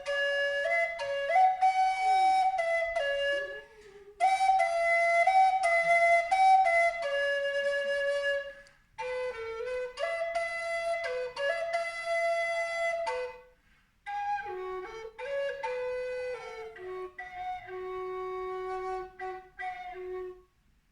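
A flute-type wind instrument playing a melody in four phrases of about four seconds each, with short breaths between them. A fainter sliding tone beneath it at times is likely a dog howling along.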